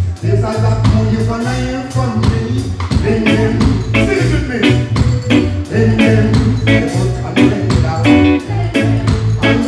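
Live reggae band playing: a male voice singing over a steady bass guitar line and a drum kit keeping a regular beat.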